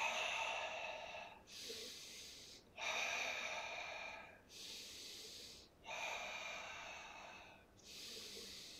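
A man breathing audibly and steadily in and out, paced to slow Pilates leg lifts. Louder and softer breaths alternate, three full cycles of about three seconds each.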